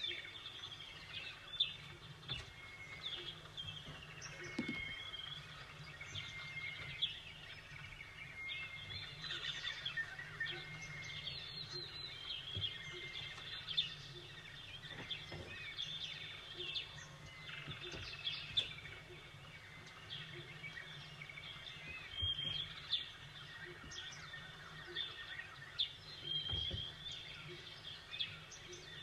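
Small birds chirping and calling back and forth, many short whistles and chirps overlapping without a break, over a steady low background rumble.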